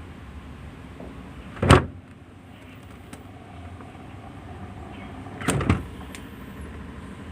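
LG refrigerator door being opened and shut. There is a sharp thud about a second and a half in, then a double knock of door and seal a little after five seconds, over a steady low background noise.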